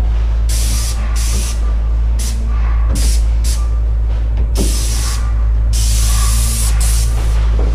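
Airless paint spray gun with a 310 fine-finish tip at about 1400 psi, spraying primer onto banister spindles in short hissing bursts as the trigger is pulled and released, about eight times, the longest about a second. A steady low hum runs underneath.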